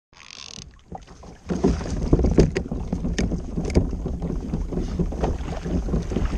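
Wind buffeting the microphone and water sloshing against a kayak's hull, louder from about a second and a half in, with a few sharp clicks and knocks.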